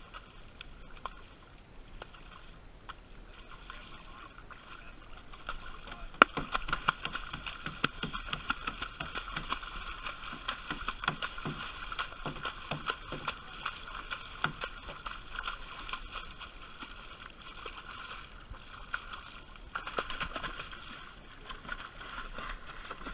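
A hooked cownose ray thrashing at the surface right beside a small boat's hull: repeated water splashes and slaps from its wings, thickest from about six seconds in, with one sharp loud slap then.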